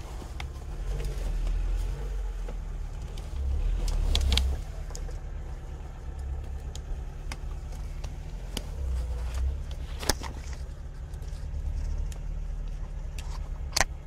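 Lada Niva's engine idling with a steady low rumble that swells and fades while the car is hauled up a slope by its winch. A few sharp cracks cut through, about four and ten seconds in, and the loudest just before the end.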